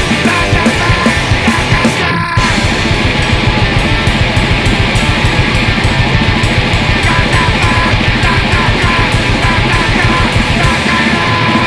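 Loud punk rock played by a full band, with a brief break about two seconds in.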